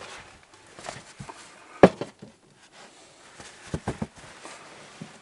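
Hanging clothes being pushed about and handled: soft fabric rustling, with one sharp knock a little under two seconds in and a quick run of three or four knocks near four seconds in.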